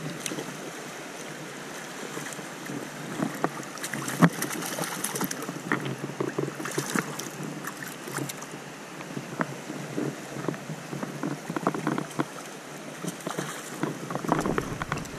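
Shallow, fast stream rushing over boulders, with irregular splashes and knocks from wading boots in the water.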